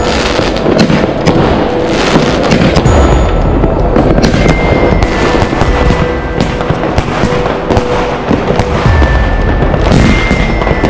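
Consumer fireworks going off in quick succession: a firework battery firing shots that burst with bangs and crackling, dense and continuous, over background music.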